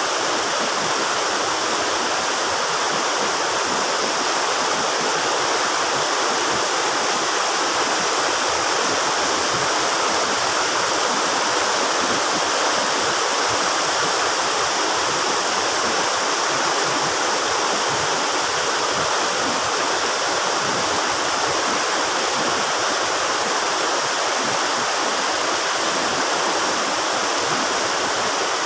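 Steady rush of falling water from Mae Ya Waterfall, an even, unbroken roar of white water.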